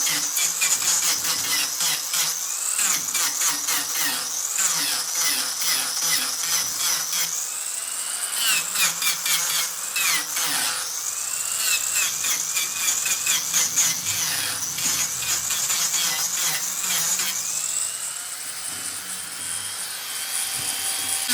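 Mini angle grinder shaping wood: a high motor whine over a fast rasping chatter. The pitch sags as the disc bites in and climbs back, a few times, most clearly about eight, ten and eighteen seconds in.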